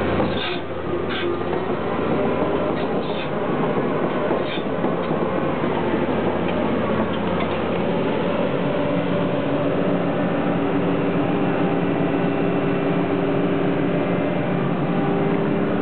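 Cat 323D crawler excavator with its six-cylinder diesel running while it travels, the steel track undercarriage clanking, with a few short squeaks in the first seconds. From about halfway through, a steady whine joins the engine as the machine works under hydraulic load.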